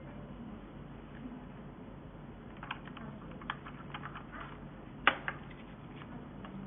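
Scattered light clicks and taps of vacuum cleaner parts being handled and fitted together during assembly, the loudest about five seconds in, over a low steady hum.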